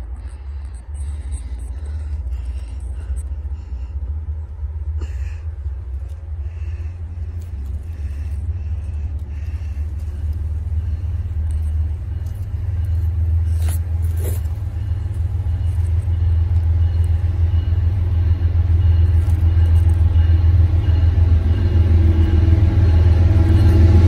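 Approaching Norfolk Southern diesel locomotive: a deep rumble that grows steadily louder, with the engine's higher tones and noise building in the last few seconds as the train nears.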